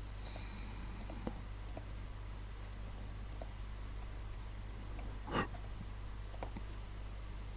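Steady low hum with scattered faint clicks, and one short soft noisy puff a little after five seconds in.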